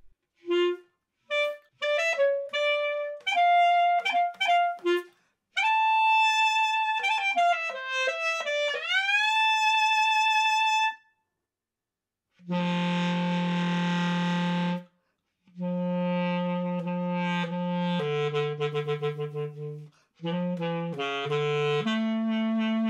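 Solo basset horn playing: a run of short detached notes, then a long high note reached by an upward slide about nine seconds in. After a short pause it moves to low held notes, the first of them rough and noisy.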